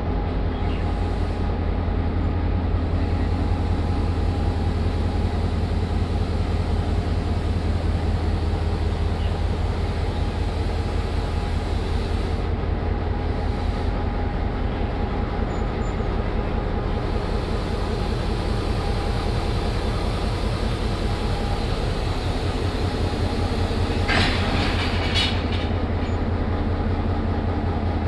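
Henschel-built Class M6 diesel-electric locomotive's engine running steadily at low speed with a deep, even drone as it backs onto the carriages for coupling. Near the end, a brief high-pitched noise rises over the drone.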